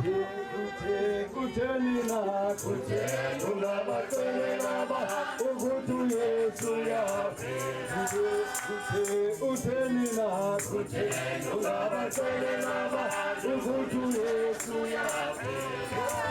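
A group of voices singing together in harmony, with a shaker keeping a steady rhythm.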